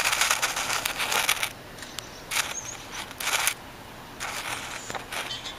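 Footsteps crunching on dry leaves and grit in irregular bursts, dense over the first second and a half, then a few shorter crunches.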